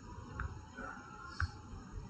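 A few faint computer mouse and keyboard clicks, the sharpest about one and a half seconds in as the compile button is clicked.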